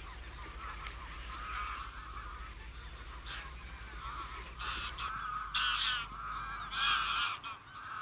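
Greylag geese honking, many calls overlapping, with a few louder honks in the second half.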